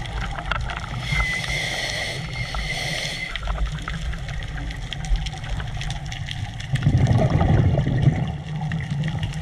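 Scuba regulator breathing heard underwater through a camera housing. A hiss with a faint whistle on an inhale runs from about a second in for about two seconds. A louder low bubbling rumble of exhaled bubbles comes near the end, over a steady muffled underwater rumble.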